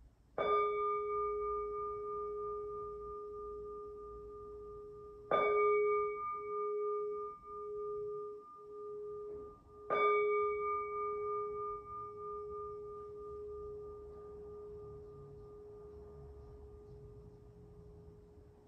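Zen temple bowl bell struck three times, about five seconds apart. Each strike leaves a long, low, wavering ring that fades slowly after the third.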